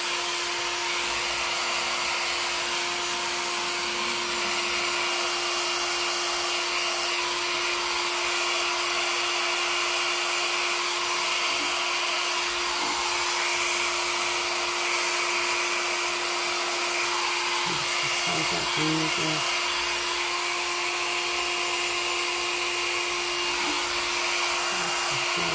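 Handheld hair dryer blowing steadily, a constant rushing of air over a steady motor hum, used to push wet acrylic paint outward into a bloom.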